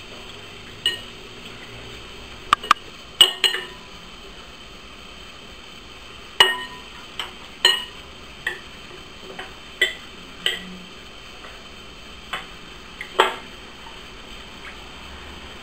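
Metal spoon clinking against a glass bowl of liquid gelatin as it is stirred: about a dozen sharp, irregular clinks, each with a brief glassy ring.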